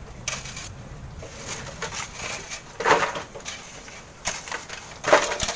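Steel shovels scraping and digging into coarse sand and gravel, several separate scrapes, the loudest about three seconds in and near the end.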